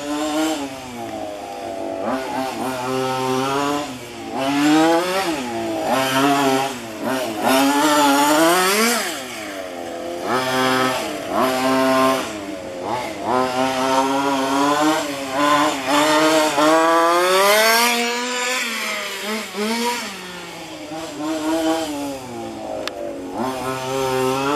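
Small two-stroke petrol engine of a 1:5 scale FG radio-controlled car, revving up and dropping back again and again, with sweeping rises and falls in pitch every couple of seconds.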